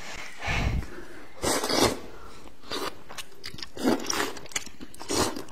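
Close-miked slurping and chewing of buckwheat noodle sheets, coming in several short noisy bursts.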